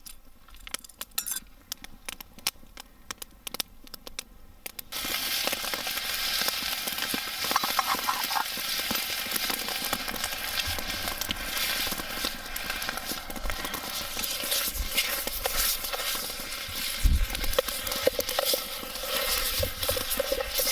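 Beef browning in butter in a stainless-steel billy pot over an open fire. For the first few seconds there are only scattered light crackles; about five seconds in, a loud, dense sizzle starts suddenly and carries on.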